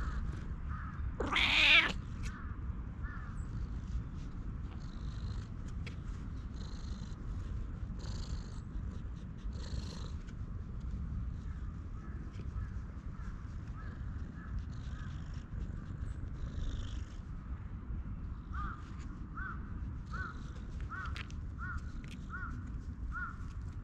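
A cat meows once loudly, a wavering cry about a second and a half in, then purrs with a low steady rumble while being stroked.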